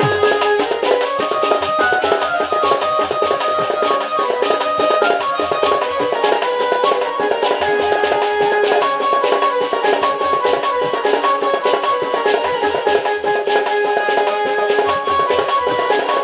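Sambalpuri folk dance music: fast, dense drumming under a melody of held notes that step from pitch to pitch.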